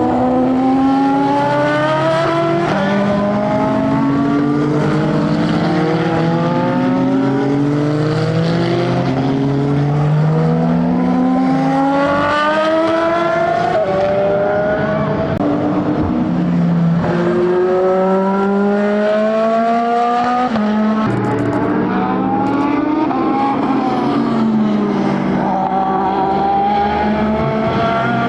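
Endurance racing cars accelerating hard past the track one after another. Each engine note climbs steadily in pitch and drops back with every upshift, and several cars overlap. One car's pitch rises and then falls as it goes by, a little past two-thirds of the way through.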